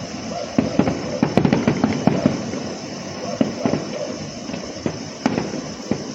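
Fireworks going off: a rapid string of bangs and crackles, thickest in the first couple of seconds, then scattered single bangs over a constant rumble of distant bursts.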